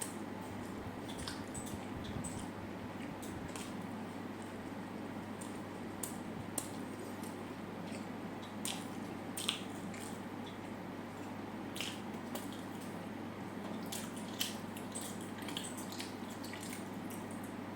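Close-miked chewing of food: wet, squishy mouth sounds and irregular sharp clicks over a steady hiss.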